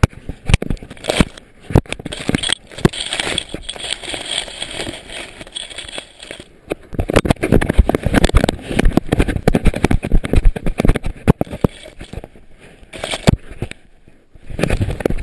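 Irregular knocking, rattling and thumping from a camera strapped to a moving dog's collar, jolted with each stride, with crackling rubbing noise against the housing; it grows busier and louder from about halfway through.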